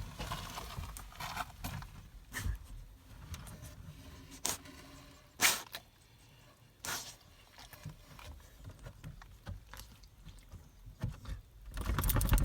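A beagle shuffling and wriggling in its dog clothes: irregular rustling of fabric and scraping, with scattered knocks, the sharpest one about five seconds in and a busier burst of movement near the end.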